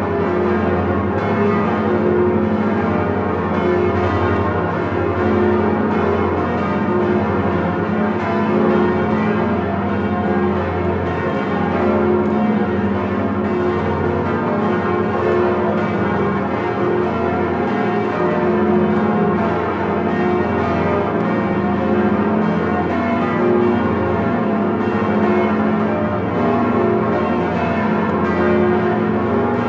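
The ten swinging bronze bells of Notre-Dame de Paris ringing together in full plenum, heard close up from inside the belfry. Their strikes overlap in a dense, continuous peal, with the deep steady tone of the great bourdons Emmanuel (F♯2) and Marie (G♯2) underneath.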